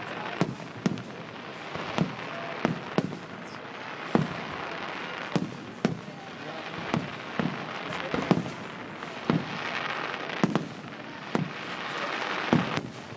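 Fireworks display shells bursting in quick, irregular succession: about twenty sharp bangs, roughly one or two a second.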